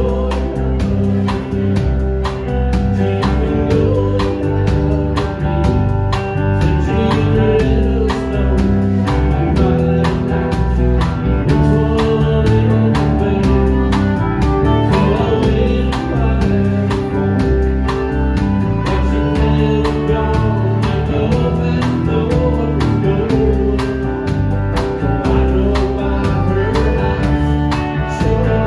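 Live country band playing a song: fiddle, acoustic guitar, electric guitar, electric bass and drum kit.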